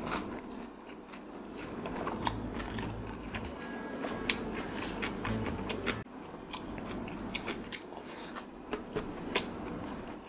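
A person chewing a mouthful of rice and fermented meat (pekasam), with many small wet clicks and smacks, and fingers working rice on the plate near the end.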